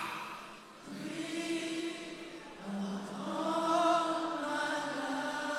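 Congregation singing a slow worship chorus unaccompanied, the many voices holding long notes together, with a short dip just under a second in.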